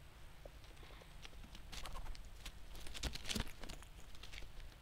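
Grey squirrel scampering over dry leaf litter close to the microphone: quick light rustles and patters that thicken through the middle, with a few dull knocks about three seconds in as it reaches the camera.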